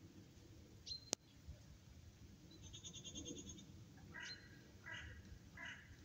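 Saanen goats bleating faintly, a run of short calls about every three quarters of a second in the second half. A single sharp click about a second in, and a bird's rapid high trill around the middle.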